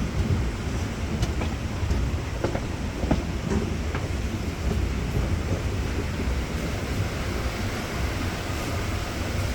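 Diesel-electric multiple unit (DEMU) passenger train running along the track: a steady low rumble, with a few sharp clicks of wheels over rail joints in the first half.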